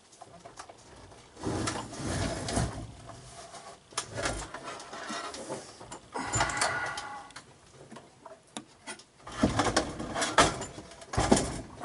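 Workbench handling noises as heavy equipment is moved about: irregular knocks, clunks and scraping, with a squeaky creak about six seconds in and the loudest knocks in the last couple of seconds.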